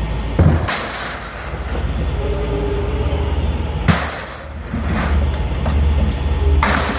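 A steady low engine rumble, with a few sharp, loud clanks of scrap metal being thrown about half a second in, near four seconds, and near the end.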